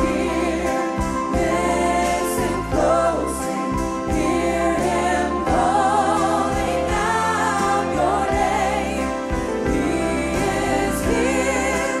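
Live gospel worship music: a woman's lead vocal with vibrato over a band, with other voices joining in.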